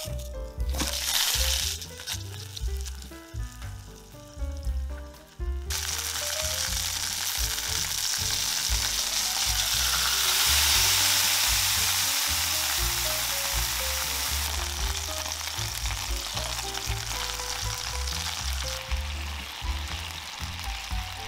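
Potato-starch-coated chicken thigh frying in oil in a nonstick pan: a steady sizzle that starts suddenly about six seconds in. Near the end the sizzle eases as liquid is poured into the pan. Background music plays throughout.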